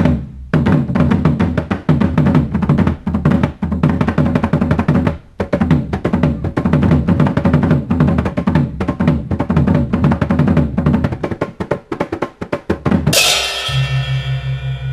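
Percussion music: drums beaten in a fast, dense rhythm, ending about thirteen seconds in on a bright crash and a long, ringing low tone that pulses slowly.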